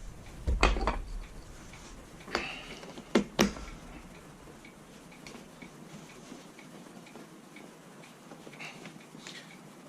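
A few sharp knocks and clicks in the first few seconds, then only faint, scattered light ticks.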